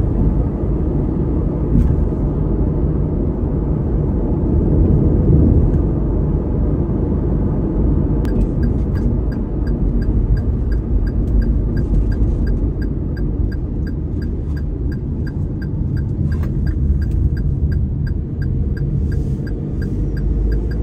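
A car driving at road speed: a steady loud rumble of road and engine noise from inside the moving car. About eight seconds in, a regular ticking starts at roughly two ticks a second and keeps going.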